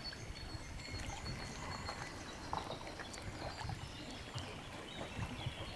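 Quiet lakeside outdoor ambience: an uneven low rumble of wind on the microphone, with a few faint bird chirps about two and a half to three and a half seconds in.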